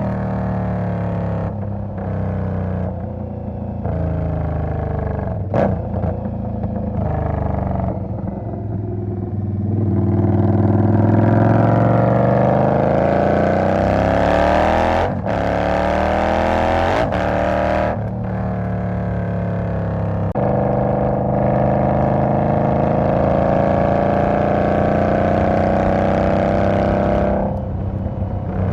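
2020 Indian Scout's V-twin engine running under load, its pitch climbing slowly in long pulls. Several short breaks interrupt the climbs, after which the pitch starts lower again.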